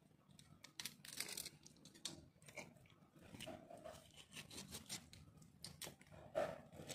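Knife cutting and scraping a freshwater fish: an irregular run of short scraping, crunching strokes, with a louder one about six seconds in.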